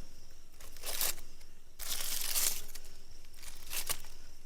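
Wrapping being torn open and crinkled off a whole chicken roasted in an underground fire pit, in several rustling, tearing bursts; the longest and loudest comes about two seconds in.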